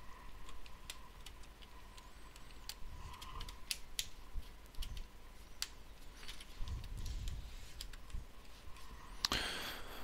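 Scattered light plastic clicks and taps as the Lenovo ThinkPad T61's case pieces are handled and pressed into place during reassembly.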